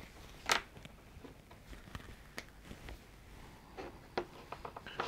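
Quiet room with scattered small clicks and taps of objects being handled at a work desk, and one short hiss about half a second in; the clicks come more often near the end.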